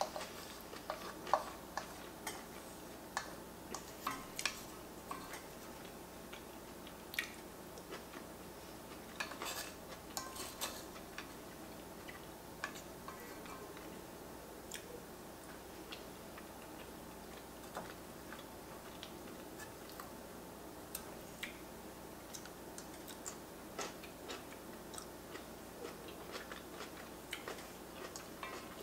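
Close-miked eating sounds: chewing and wet mouth smacks, with irregular soft clicks of a wooden fork against an enamelled pan as food is picked up. The clicks come more thickly in the first ten seconds or so.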